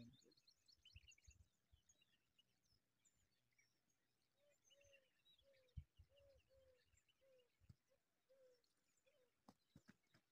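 Faint birdsong: quick high chirps and twitters, then a run of about ten short, lower call notes repeated about twice a second. A single soft knock stands out about halfway through.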